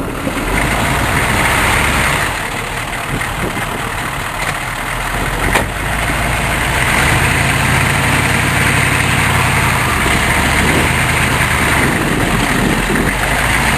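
Chevrolet K5 Blazer plow truck's engine running while the truck is stuck in snow, its note stepping up and down a few times as it works to get free.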